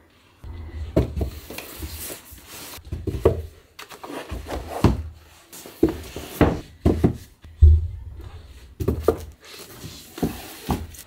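Hardcover books being handled and set onto a wooden shelf: a series of irregular knocks and thuds, with rubbing and sliding between them.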